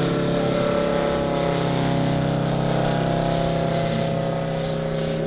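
Valach VM-250 R5 five-cylinder radial engine of a half-scale model Bücker Jungmeister biplane running steadily in flight, easing off a little near the end.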